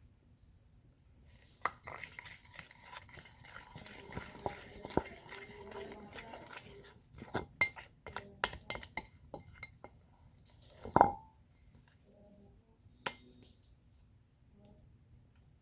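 A spoon stirring and scraping slime mixture in a bowl, clinking against the side over several seconds. A single louder knock comes near the end of the stirring.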